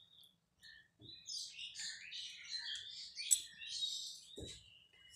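Small birds chirping in a quick, busy run of short high calls, with a soft low thump about four seconds in.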